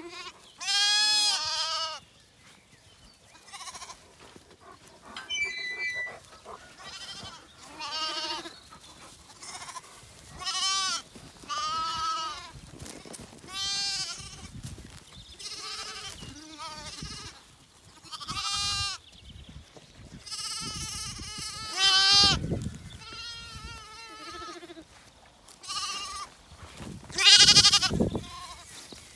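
A flock of Zwartbles lambs bleating over and over, one quavering high call after another, often several at once, with the loudest bleat near the end.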